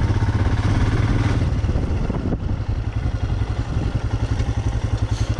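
Motorcycle engine running at low revs, its exhaust pulsing in an even, rapid thump.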